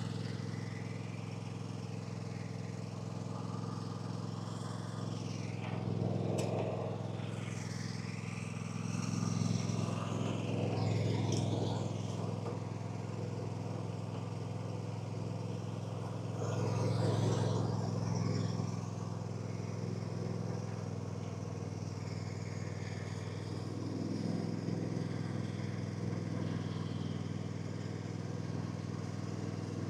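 An engine running steadily, with a few louder swells.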